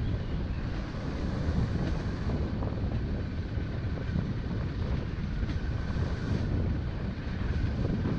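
Motorcycle riding along a rough dirt road, its engine running steadily under wind noise on the microphone.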